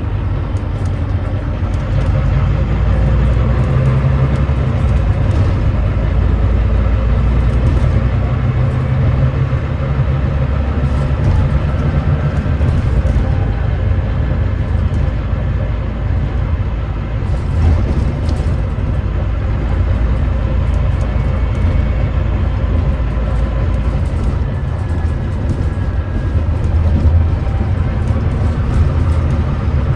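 Volvo B9TL bus's Volvo D9B diesel engine running under way, a steady low rumble with a ZF Ecolife automatic gearbox. A few rattles come about halfway through, and a faint whine rises in pitch near the end.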